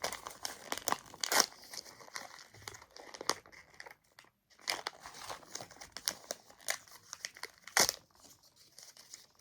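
Small plastic packaging being handled and opened: irregular crinkling and tearing crackles, with sharper crackles about a second in and near the end.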